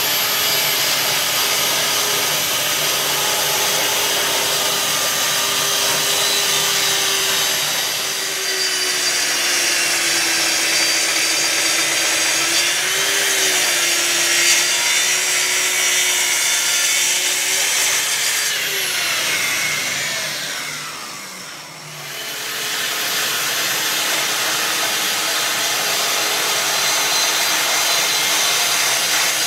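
Festool TS55 plunge tracksaw cutting solid cherry along its guide rail, levelling the top of a bench base. The motor's pitch sags and recovers under load through the cut. About 19 seconds in it spins down, then starts up again for the next cut about 22 seconds in.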